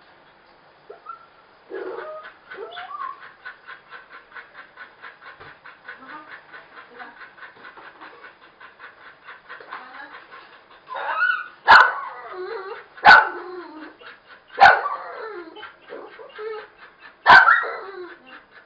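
Dog whining with a fast pulsing rhythm for several seconds, then four loud, sharp barks, spaced a second or two apart.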